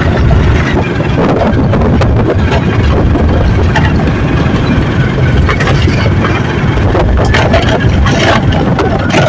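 A vehicle's engine running on the move, under heavy wind rumble on the microphone.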